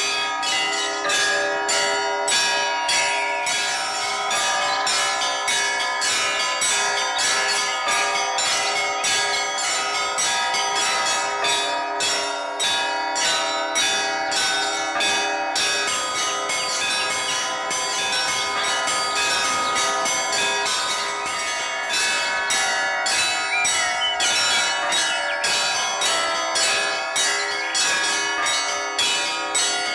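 Orthodox church bells rung in a continuous, rapid peal: several bells of different pitches struck in quick succession, their tones ringing on and overlapping.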